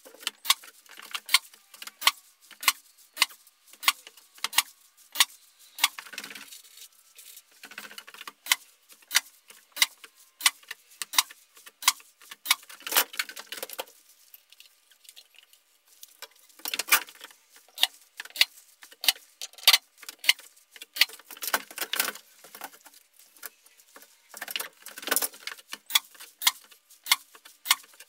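Even, sharp ticking, about four ticks every three seconds, with spells of rustling and shuffling in between as someone moves about and climbs a stepladder.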